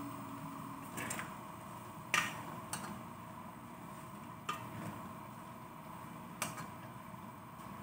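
Metal spoon knocking and scraping against an aluminium pot while stirring sliced papaya: five separate clinks, the loudest about two seconds in, over a steady background hiss.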